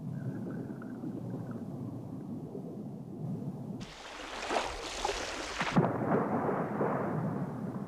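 A splash into the sea about four seconds in, followed by a couple of seconds of churning, bubbling water, over a steady low rumble.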